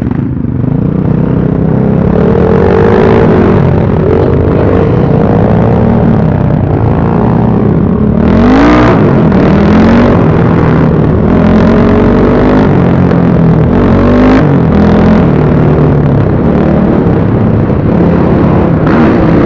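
BSE Z6 enduro motorcycle engine running under riding load, its pitch rising and falling as the throttle is opened and closed, with a sharp rev about eight seconds in.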